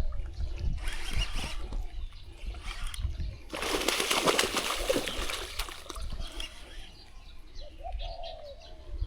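Hooked snakehead thrashing at the water surface, splashing in bursts, loudest about halfway through. A short bird call comes near the end.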